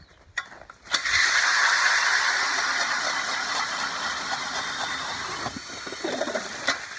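Milwaukee 2704 cordless hammer drill spinning an 8-inch Nils ice auger through lake ice: the steady grinding rush of the blades cutting ice starts about a second in, slowly fades as the hole deepens, and cuts off suddenly near the end when the drill stops.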